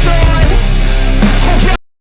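Loud background music with a strong beat, cutting off suddenly near the end.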